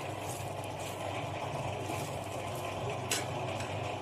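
Melted butter sizzling in a preheated stovetop sandwich toaster as a silicone brush spreads it over the plate, over a steady low hum. A brief tap about three seconds in.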